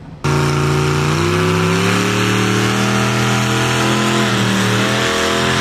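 Truck engine running hard at high revs, starting abruptly and holding steady, its pitch dipping briefly about four seconds in and then climbing again.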